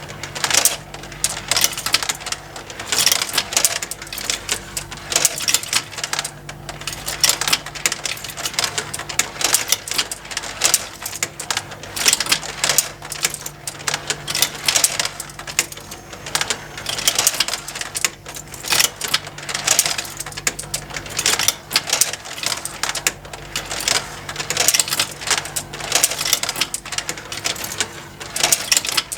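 Motorised plastic marble run toy in continuous operation: a dense, irregular clatter of marbles clicking against plastic tracks and lifts, over the faint steady hum of the small electric motor driving the conveyors.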